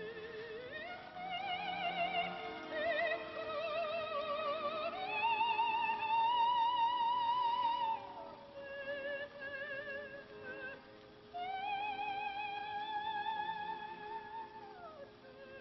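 An opera recording: a high soprano voice sings long sustained notes with a wide vibrato, the two longest held notes each ending in a falling glide.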